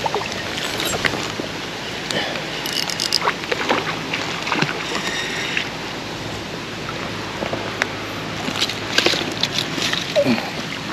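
Steady rush of flowing stream water, with scattered small splashes and clicks.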